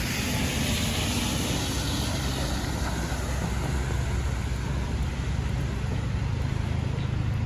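City traffic on rain-wet streets: a car's tyres hiss on the wet pavement, loudest in the first couple of seconds and then fading. Under it runs a steady low rumble of engines.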